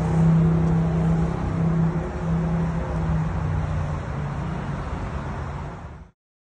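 Motor vehicle engine running close by amid road traffic, a steady low hum over a rumble that eases slightly. The sound cuts off abruptly about six seconds in.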